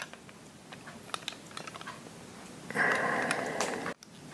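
Small clicks and taps of armour pieces being handled and snapped onto a Saint Seiya action figure, followed near the end by about a second of louder rustling.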